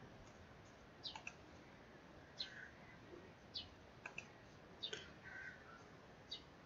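Faint computer keyboard and mouse clicks: a scattered handful of short, isolated clicks with pauses between them.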